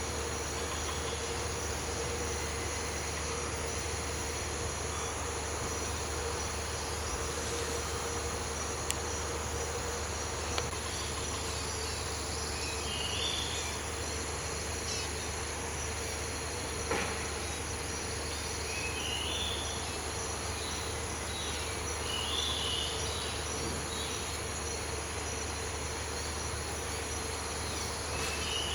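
Tropical rainforest insect chorus: a steady, high-pitched drone of insects. Short chirping calls come in a few times in the second half, and there is one sharp click midway.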